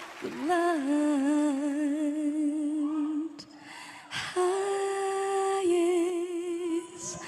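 A young woman's voice humming a slow wordless melody, with long held notes and even vibrato. There is a short break about three seconds in before the next phrase.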